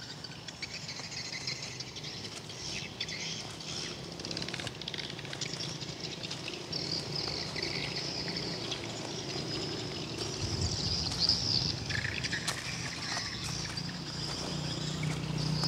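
Outdoor ambience with faint high-pitched chirping that comes and goes, over a steady low background hiss.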